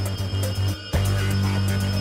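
Background music with a steady beat over a held low bass tone. It drops out briefly just under a second in, then resumes.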